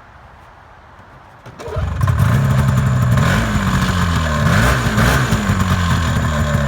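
Yamaha Phaser snowmobile's two-stroke twin engine pull-started, catching on the first pull about a second and a half in, then running with the revs rising and falling.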